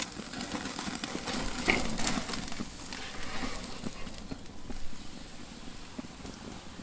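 Hot charcoal crackling and a T-bone steak sizzling on a Weber kettle grill's grate as it is flipped with metal tongs, with scattered clicks of the tongs on the grate. It gets somewhat quieter after about four seconds.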